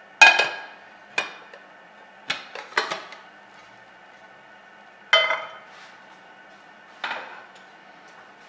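A non-stick frying pan and a ceramic plate clattering on a gas stove's iron grate, as the pan is turned over onto the plate and set back on the burner. There are six sharp knocks, each ringing briefly, and the first is the loudest.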